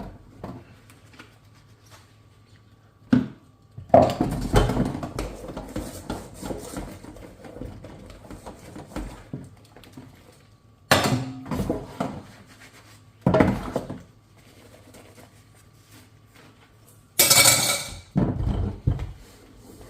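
Dishes and cutlery being handled while washing up: clinks, knocks and clatter in separate bursts, with quiet spells between them. Near the end comes a short, loud hiss.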